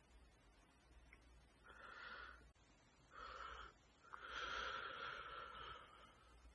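Sneezing: three faint, breathy bursts of air, the third and longest lasting about two seconds.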